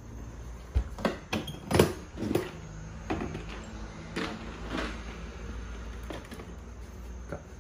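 Hands rummaging in an open plastic toolbox, with a run of knocks and clatters as parts are moved about inside it, the loudest about two seconds in.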